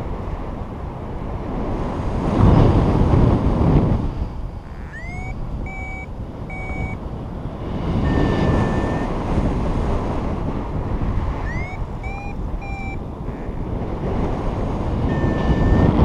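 Wind rushing over the microphone of a paraglider in flight, gusting louder a couple of seconds in. Over it a flight variometer beeps: quick groups of three short rising chirps around five and twelve seconds in, the variometer's climb signal, and a single longer steady tone around eight seconds and again near the end.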